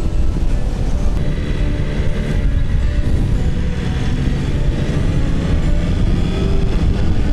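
Motorcycle engine running at road speed, heard from on the bike, with steady road and wind noise underneath.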